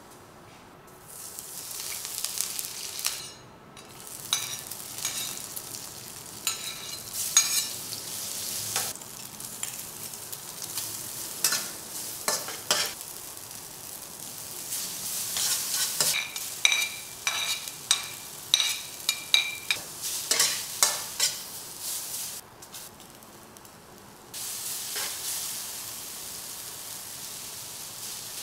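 Rice vermicelli stir-frying in a hot wok: a steady sizzle, with a metal spatula scraping and knocking against the pan as the noodles are tossed. The sizzle and scraping break off briefly twice.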